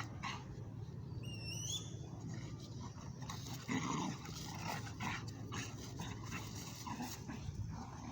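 Dogs giving short, irregular growls and whimpers, with a brief high rising squeak about a second and a half in.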